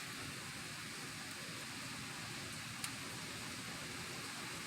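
Heavy rain coming down steadily, an even hiss, heard from indoors. One faint tick a little under three seconds in.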